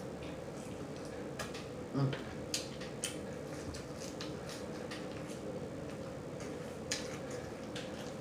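Close-up mouth sounds of someone chewing food: scattered short, wet smacking clicks over a steady low hum, with a brief low thump about two seconds in.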